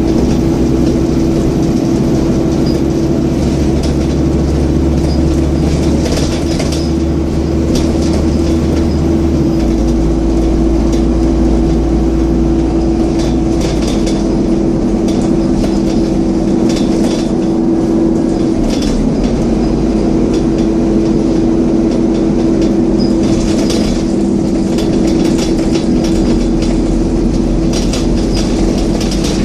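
Scania N230UD double-decker bus running, its engine cooling fan giving a steady whine over the engine's low drone, which shifts about ten and fourteen seconds in. Scattered rattles and clicks.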